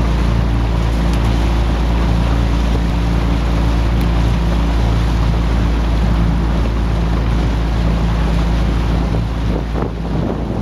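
Outboard motor of a coaching launch running steadily at cruising speed, with wind rushing over the microphone. The engine note drops away near the end.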